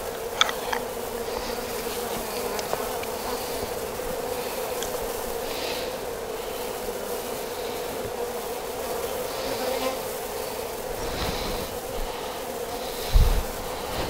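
Steady hum of a crowd of honey bees flying around an opened hive, with a few light clicks as wooden frames are handled early on and a brief low thump near the end.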